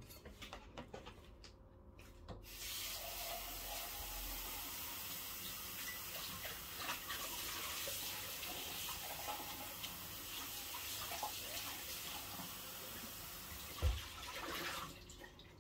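Kitchen tap running into a sink, a steady hiss of water that starts about two and a half seconds in and stops just before the end, after a few light clicks of handling. A single thump sounds near the end, the loudest moment.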